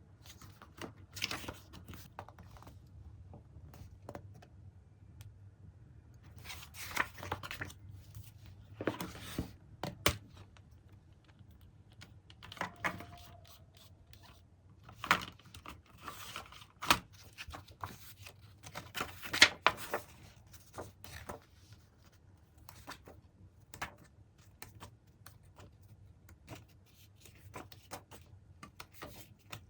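Irregular clicks, taps and light rustling of small objects being handled, scattered through a quiet room with a low background hum.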